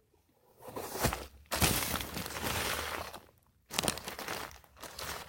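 Digging by hand through garden soil around a potato plant: scraping and crunching of dirt in a few bursts, the longest lasting nearly two seconds.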